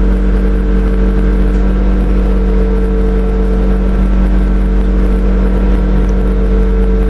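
Steady drone and low rumble of a passenger train heard from inside the carriage as it runs slowly towards a signal, the pitch holding level throughout.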